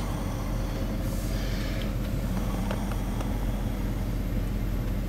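Steady engine hum and road noise heard from inside the cabin of a moving vehicle.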